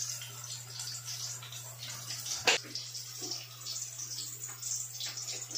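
Ham and hotdog slices sizzling in a frying pan: a steady crackling hiss over a low steady hum, with one sharp knock about two and a half seconds in.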